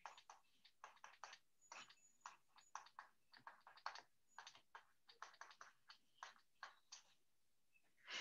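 Faint scratching and tapping of a stylus on a tablet while handwriting: many short, irregular strokes, several a second.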